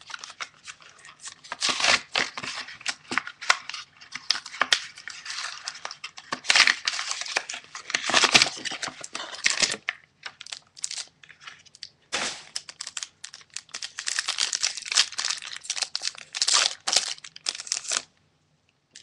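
Foil booster pack wrapper of Yu-Gi-Oh! trading cards being torn open and crinkled in the hands: a long run of dense crackling and tearing, thinning out briefly about ten seconds in, then stopping shortly before the end.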